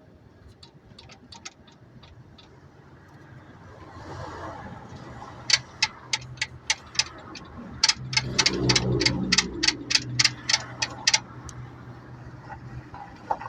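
Worn upper ball joint in a 2006 Chrysler 300's front suspension clicking sharply, about three times a second for several seconds, over a low rumble. The clicking is the sign of the damaged ball joint.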